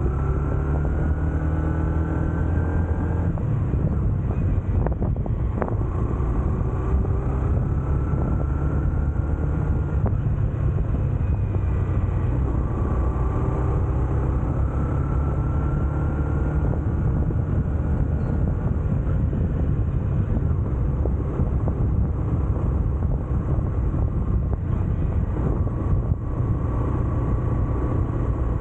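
Honda CB125F's single-cylinder four-stroke engine running on the move, its pitch rising several times as it accelerates and changes gear.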